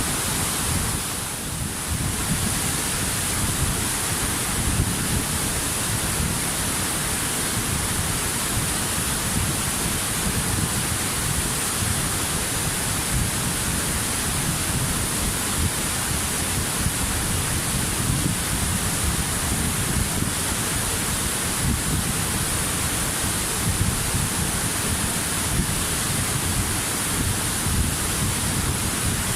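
Waterfall: a steady, dense rush of falling water, dipping briefly a second or so in.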